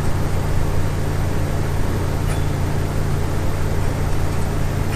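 Westinghouse Portatape reel-to-reel tape recorder running, its motor and drive giving a steady low hum, with one faint click a little over two seconds in.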